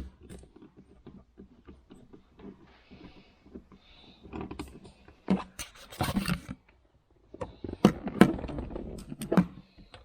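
Interior trim plate being worked loose by hand, a forgotten screw taken out first: irregular clicks, knocks and scrapes of plastic and metal, with the loudest knocks in the second half.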